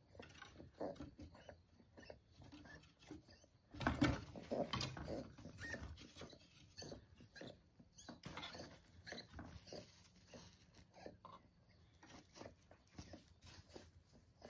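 A kunekune piglet and a kitten moving about a wooden crate lined with a blanket: irregular scuffles, rustles and light knocks, with a louder burst about four seconds in.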